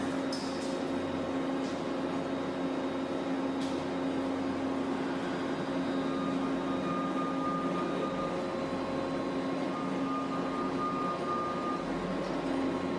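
Steady mechanical hum with a constant low tone, a few faint clicks near the start, and a thin higher whine that comes and goes in the second half.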